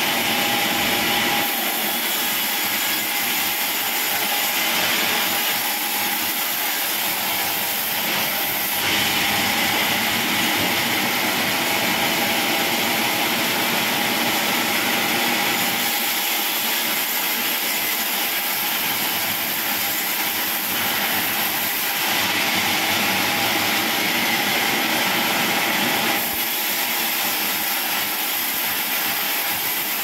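Large band sawmill running, its blade cutting lengthwise through a log fed along the table: a loud, steady mechanical rush, with a higher hiss that grows stronger during stretches of the cut.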